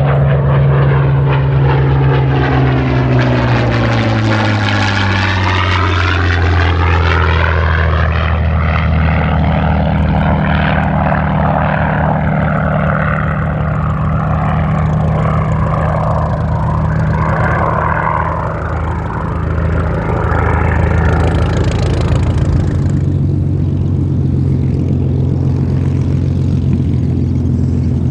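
Supermarine Spitfire's Rolls-Royce Merlin V12 engine and propeller running loud and steady. Its pitch falls over the first few seconds, as when the aircraft passes by, and then holds as a steady drone.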